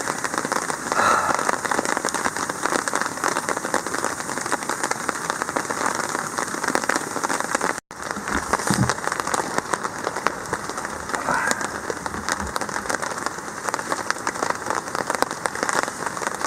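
Steady rain, with dense drops pattering continuously. The sound drops out for an instant about halfway through.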